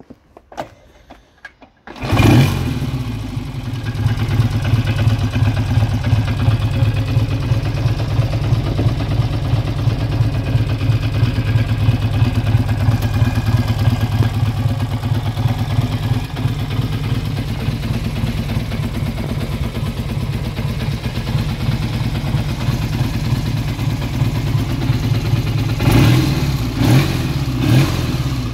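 A 1965 BSA A65 Lightning Clubman's 650 cc parallel-twin engine starts about two seconds in and then runs at a steady idle, with a few blips of the throttle near the end.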